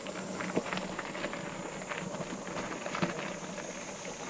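Summer cicadas droning steadily on a high pitch, with scattered irregular clicks and taps over it.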